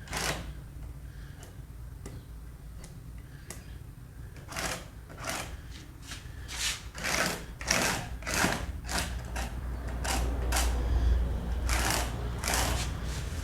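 Woodworking on a wooden Christmas-tree piece: a steady low machine hum under a run of short scraping strokes against wood. The strokes begin about four seconds in and come about one or two a second.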